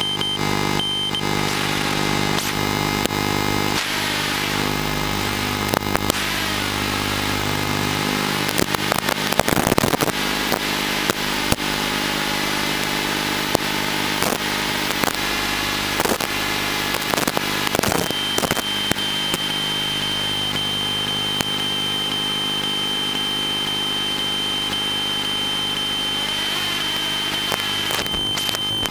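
Small FPV quadcopter's motors and propellers whirring as it flies, the pitch rising and falling with the throttle, with frequent sharp crackling clicks. A steady high tone comes in about two thirds of the way through.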